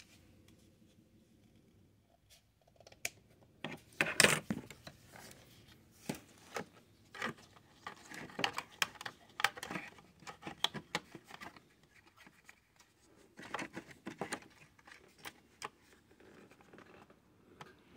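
Scissors snipping thin white plastic sheet, then the plastic pieces clicking and scraping as they are handled and pressed onto a plastic model. The sounds are short, irregular clicks and rustles, loudest about four seconds in.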